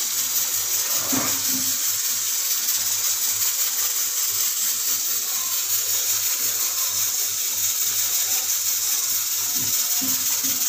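Thick vegetable curry sizzling in ghee in a pan, a steady hiss, with a spatula knocking against the pan about a second in and again near the end. The ghee has separated to the surface, the sign that the curry is cooked through.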